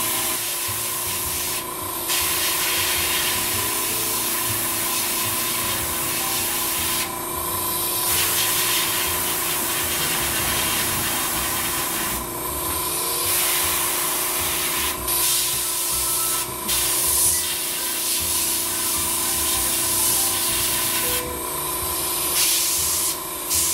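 Paasche H airbrush hissing as it sprays ink, the hiss easing and coming back several times as the painter works the trigger, over the steady hum of a small airbrush compressor.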